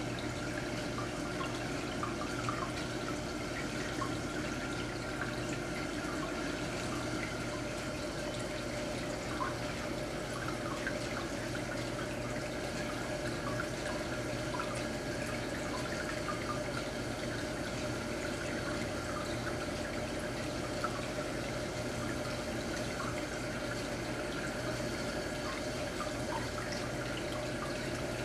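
Marine aquarium's water circulation: a steady trickle and splash of moving water with small drips, over a low steady hum.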